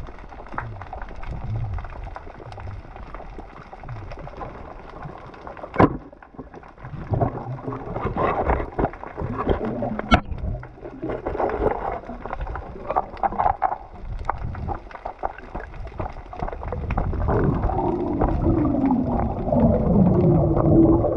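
Muffled underwater noise picked up through a waterproof camera housing during night spearfishing, with two sharp knocks about four seconds apart, the second as the spear strikes the reef. A muffled, wavering sound rises near the end.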